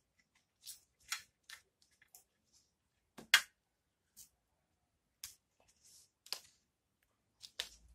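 Scattered small clicks and taps of a solar light's circuit board, battery cell and wires being handled on a workbench, the loudest a sharp click a little over three seconds in.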